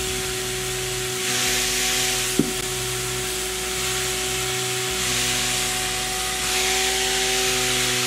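Small DC hobby motor spinning a plastic propeller: a steady motor whine over a rushing hiss of air that swells and fades, with one sharp click about two and a half seconds in.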